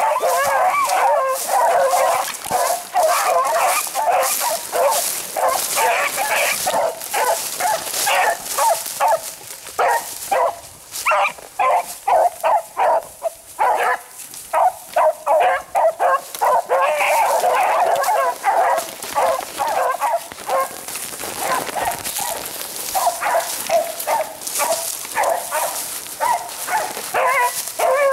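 A pack of rabbit beagles baying while trailing a rabbit, several dogs' voices overlapping in a near-continuous cry. About halfway through, the cry breaks into separate calls for a few seconds before thickening again.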